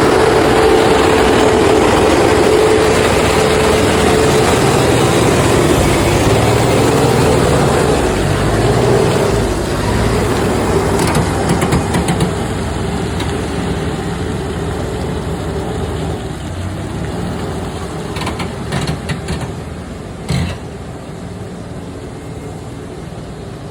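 Heavy truck engine running steadily, growing gradually quieter, with a few short knocks in the second half.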